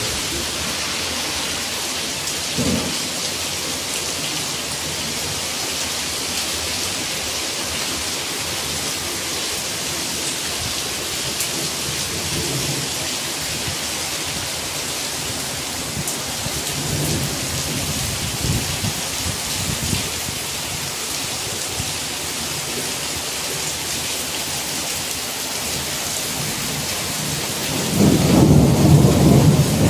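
Rain falling steadily with thunder rumbling: a few faint rolls in the middle and a louder rumble starting near the end.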